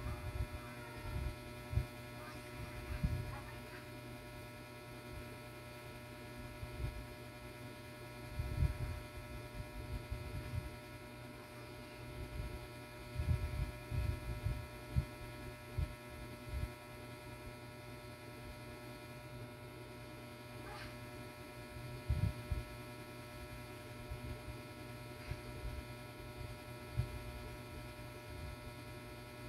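Steady electrical hum made of several fixed tones, with irregular soft low thuds coming and going over it.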